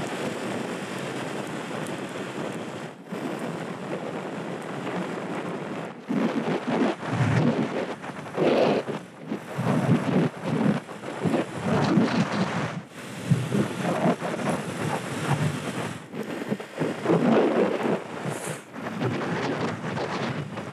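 Wind buffeting the microphone on a moving 50cc scooter: a rushing, gusting noise that turns rougher and more uneven about six seconds in. It drops out briefly every few seconds.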